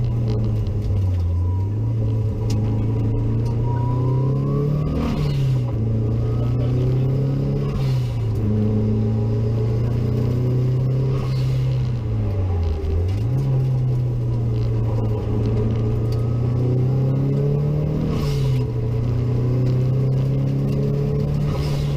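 Boosted rally car engine heard from inside the cabin, running hard at fairly steady revs, its note rising and falling a few times with throttle lifts and gear changes. The car is being driven with some restraint after the engine warning light came on.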